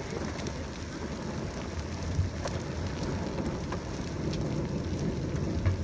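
Gusty storm wind buffeting the microphone: an uneven low rumble under a steady rushing hiss, with scattered sharp ticks.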